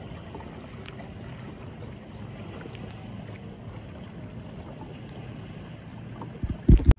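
Kayak under way on open water: a steady wash of water and wind on the microphone, with a few loud knocks close together near the end.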